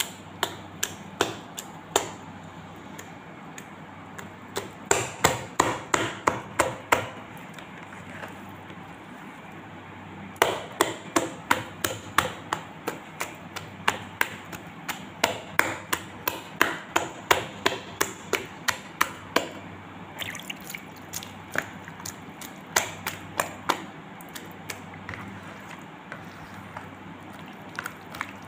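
A hand slapping and squelching through a runny flour-and-water regag batter in a plastic bowl, in quick runs of wet slaps, a few per second, with short pauses between runs. The batter is being beaten to the thin, watery consistency needed for regag flatbread.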